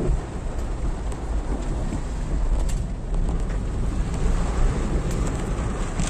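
Heavy rain and wind beating on a moving car, heard from inside the cabin: a steady rushing noise over a low rumble.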